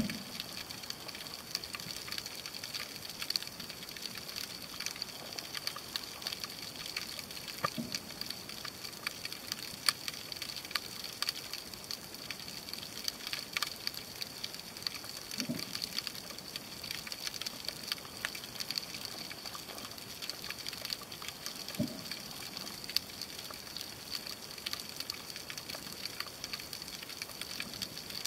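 Underwater ambience on a rocky reef picked up by a submerged camera: a steady, dense crackle of tiny clicks, with three brief low sounds spread through it.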